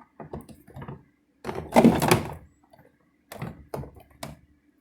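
Condiment bottles and jars knocking and thunking against refrigerator shelves as they are moved and set down. There is a series of short knocks, a louder clatter lasting about a second around the middle, and a few more knocks near the end.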